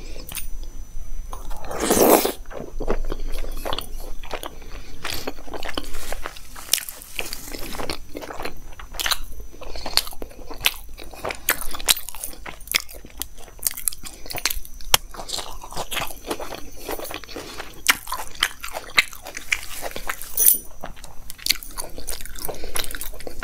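Close-miked chewing of aloo paratha dipped in masala yogurt: wet mouth clicks and smacks, many a second, with a louder mouth sound about two seconds in. Near the end the flatbread is torn by hand.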